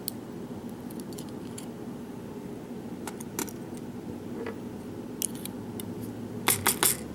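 Small metal lock parts being handled while the lock is taken apart: scattered light metallic clicks and taps, with a quick run of sharper clicks near the end.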